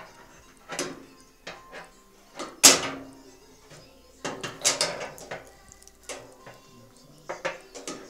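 Metal hand tools clinking and knocking against parts inside the tub of an old Centrales washing machine being taken apart: scattered knocks, the loudest one about two and a half seconds in and a quick run of them around the middle.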